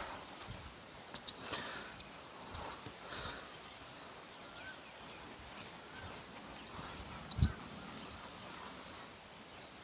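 Birds chirping with many short, falling calls over a quiet outdoor background, with a few sharp clicks and a soft thump about seven seconds in.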